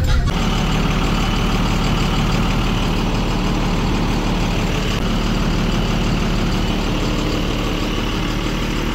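Bus engine idling steadily.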